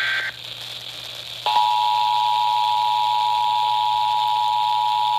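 End of an Emergency Alert System header data burst, then, about a second and a half in, the EAS attention signal starts: the steady two-tone alert (853 and 960 Hz) held without a break.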